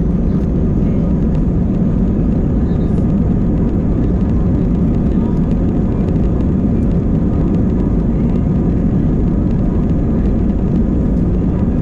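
Steady low rumble inside the cabin of an Airbus A320-200 airliner: the jet engines and airframe running with no change in pitch or level.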